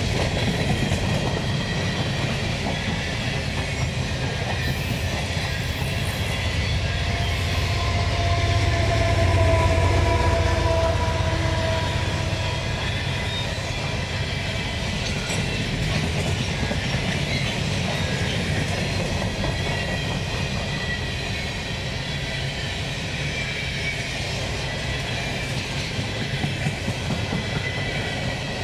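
Empty covered hopper cars of a CP Rail grain train rolling steadily past, the wheel noise loudest about nine seconds in. Thin squealing tones from the wheels come through around the middle.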